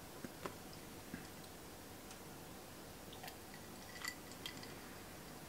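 Faint, scattered light clicks and taps of drawing tools: a plastic set square being shifted along the drawing board's edge and a technical pen touching the paper.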